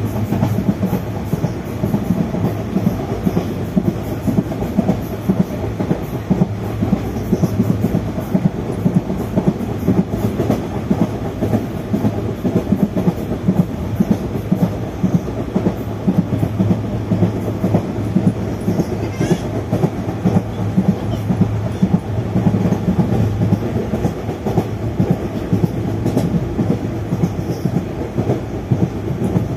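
Wheels of Indian Railways ICF passenger coaches running at speed over the rails: a continuous rumble with rapid, uneven clickety-clack as the wheels pass rail joints.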